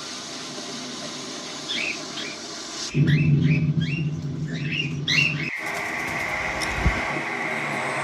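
Young parrots chirping in short, quick calls that come in little runs.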